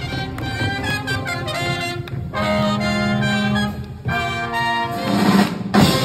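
Live brass band playing a lively up-tempo number: trumpets, saxophones and trombone over a drum kit, with a brief pause about four seconds in and a loud hit near the end.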